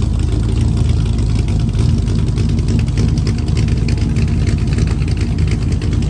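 LS3 V8 in a 1972 Chevrolet Impala convertible running at idle, a steady, loud low exhaust note.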